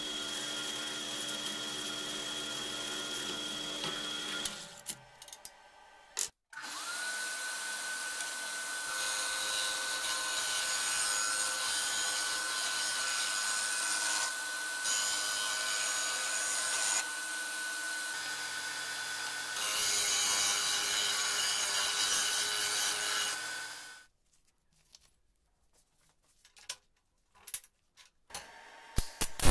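Drill press running, its bit boring into a square steel tube. After a short break, a bench disc sander runs for about seventeen seconds with a steady whine, grinding the corner of a welded steel tube frame, louder in stretches while the steel is pressed to the disc. Near the end, a few light metallic knocks.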